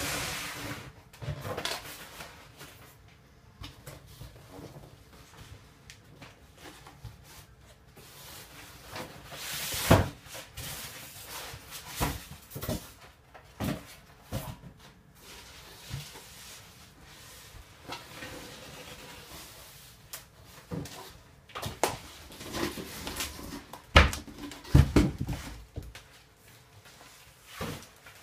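Cardboard box and packaging being handled during unboxing: irregular knocks and thuds, the loudest about ten seconds in and again about twenty-four seconds in, with a stretch of rustling in between.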